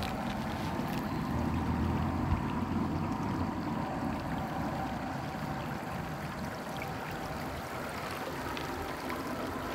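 Shallow river water running steadily over a pebbly bed, with a low rumble during the first couple of seconds.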